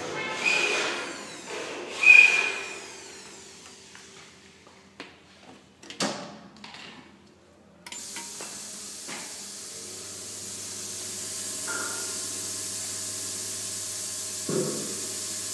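Corona treater switched on: a click, then a sudden steady high hiss of the corona discharge at the electrode, joined about two seconds later by a low steady hum. Before it, rustling and a few clicks from handling.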